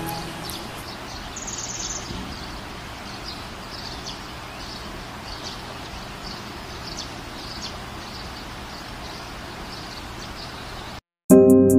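Forest ambience of faint, scattered bird chirps over a steady hiss. It cuts off suddenly near the end, and music starts.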